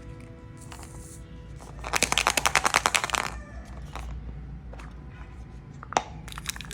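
Background music with a burst of rapid crackling about two seconds in that lasts about a second, and one sharp snap near the end.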